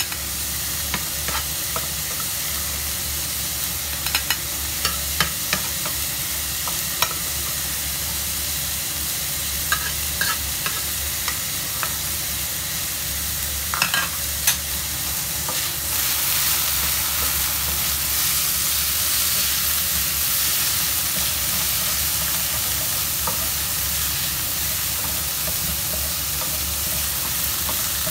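Diced meat sizzling in a nonstick frying pan, with scattered clicks and taps of a spatula against the pan. The sizzle grows louder a little past halfway through.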